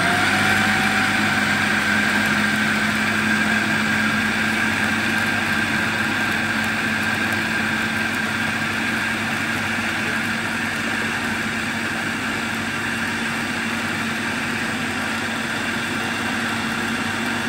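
Food processor motor and blade running steadily, blending basil, pine nuts, garlic, olive oil and Parmesan into pesto. It switches on suddenly and keeps an even whirring hum, easing slightly in loudness as it runs.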